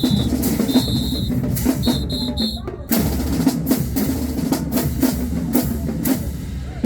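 Marching band drumline playing a cadence, with snare and bass drums beating steadily and a brief break near the middle. A high whistle sounds in short blasts during the first few seconds.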